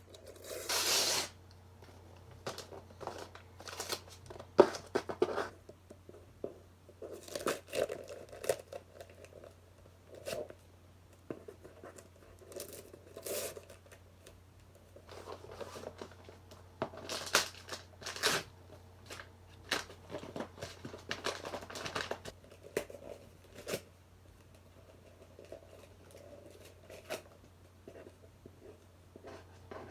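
Mailing packaging being torn open and crumpled by hand: irregular rips and crinkles coming in short spells with quiet pauses between.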